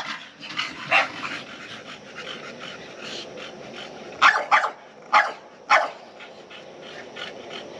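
Dog barking in short sharp barks: one about a second in, then a run of four a few seconds later.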